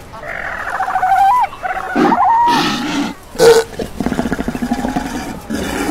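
Cape fur seals calling: wavering bleat-like cries rising in pitch, a short loud call about three and a half seconds in, then a low rapid pulsing growl.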